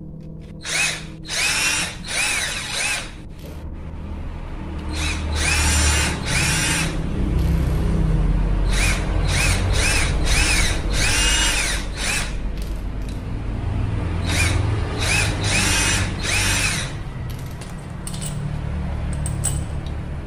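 Cordless drill running in a series of short trigger-pulled bursts, its motor whine rising and then falling in pitch each time, while the bit is run through small white plastic spacers held by hand.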